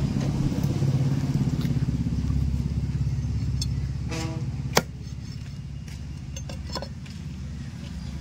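A motor vehicle engine running steadily close by, slowly growing fainter, with one sharp knock a little over halfway through.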